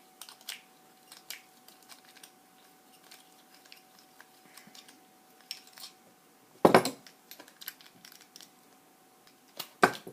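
Small metallic clicks and taps of a screwdriver working a small screw out of the inside of a padlock's aluminium body, with two louder knocks, one a little past the middle and one near the end. A faint steady hum runs underneath.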